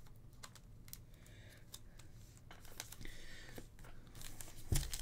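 Faint rustling and light clicks of trading cards being handled and shuffled between the fingers, with a soft thump on the tabletop near the end.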